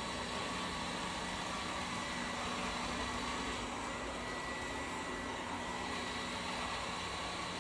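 Vacuum cleaner motor running steadily, a constant whooshing drone with a faint high whine.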